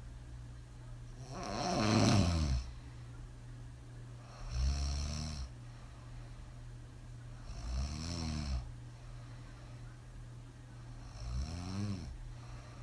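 A woman snoring hard on her back: four deep snores about three seconds apart, the first the loudest.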